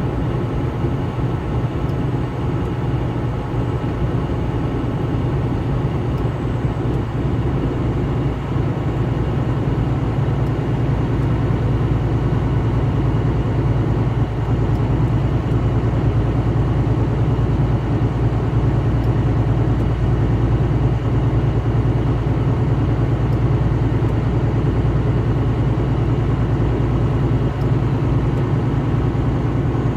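Steady engine and road noise of a vehicle driving at highway speed, with a constant low hum that grows slightly louder about halfway through.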